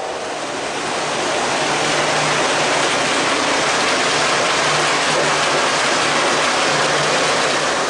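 Lionel Legacy Acela O-gauge model train running past at high speed close by: a steady rushing noise of its wheels on the track, swelling about a second in, with a faint low hum under it.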